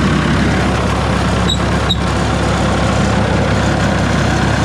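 Engine of a large wood chipper running steadily, a low even drone, with the hydraulic pump working. Two short sharp clicks about a second and a half in.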